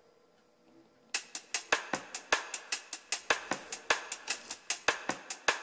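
Background music: a fast, steady percussion beat of sharp drum and cymbal hits that starts about a second in, after a moment of near silence.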